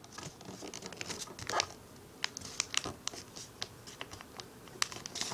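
Sheet of paper being handled and folded: light scratching and rustling with scattered, irregular ticks.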